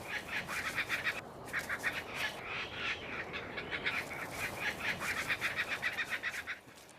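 A bird calling in fast, chattering runs of short repeated notes, about eight to ten a second, with brief pauses between runs. The calling stops shortly before the end.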